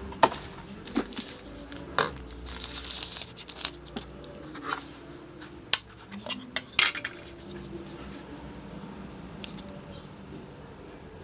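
Hands handling a plastic mobile phone and its packaging: a series of sharp plastic clicks and taps as the phone's back cover is worked off, with a short crinkling rustle about two seconds in. It grows quieter after about seven seconds.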